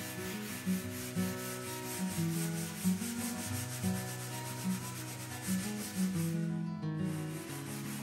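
Coarse wire wool scrubbed back and forth over a varnished tabletop softened with chemical stripper, a steady rasping rub that lifts the old finish and breaks off briefly near the end. Background music with a low melody plays underneath.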